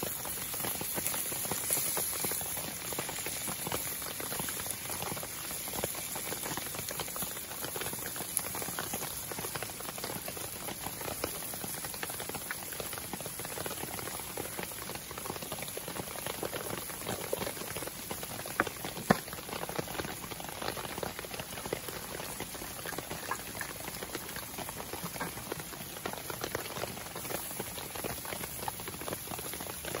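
Steady patter of rain mixed with food sizzling in a frying pan over a wood campfire, with small crackles throughout and one sharp pop about 19 seconds in.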